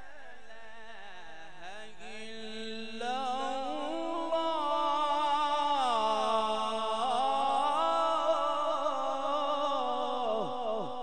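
A man's melodic Quran recitation (qirat) into a microphone: one long, ornamented line of held and gliding notes. It is softer at first, grows louder about three seconds in, and ends in a wavering fall.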